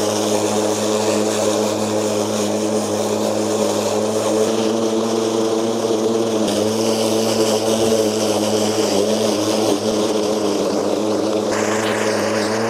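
Stiga battery lawn mower running as it cuts grass: the electric motor and spinning blade make a steady hum with a hiss of cut grass over it.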